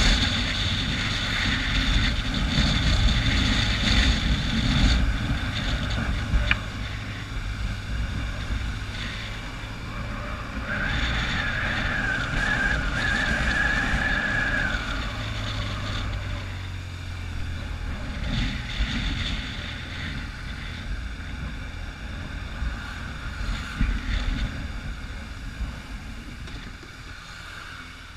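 Motorcycle riding along, heard from a camera on the bike: wind rushing over the microphone over the steady running of the engine. A high steady whine joins in for a few seconds in the middle, and the whole sound grows quieter near the end.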